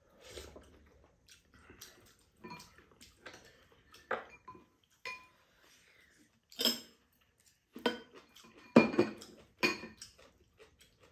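Spoons and metal chopsticks clinking against ceramic bowls and a frying pan as two people eat: scattered clinks, some with a brief ring, the loudest cluster near the end.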